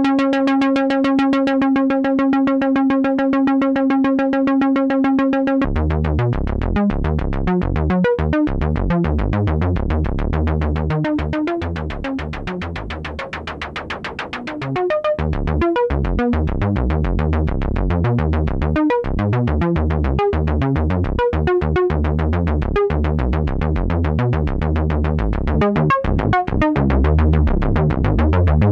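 Birdkids RAVEN dual-VCO analog synthesizer voice sounding a steady held note, then about six seconds in switching to a low, rhythmic sequence of changing bass notes whose tone shifts as its knobs are turned. The level dips for a few seconds around the middle before coming back up.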